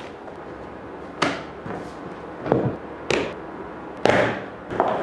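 Luggage being handled: about six sharp knocks and clicks. The loudest comes about four seconds in as hands work the latch of a hard-shell suitcase.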